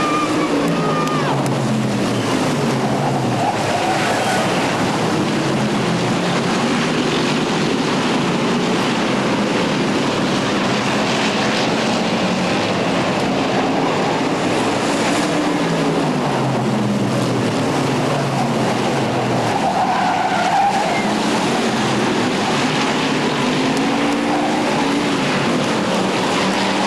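Stock cars racing around a short oval track. Their engines rise and fall in pitch again and again as the pack goes by, at a loud and steady level.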